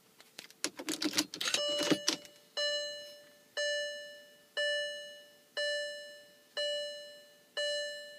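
A short run of clicks and rattles, then a 2005 VW Touareg's warning chime dinging about once a second, each ding ringing out and fading, while the car refuses to start.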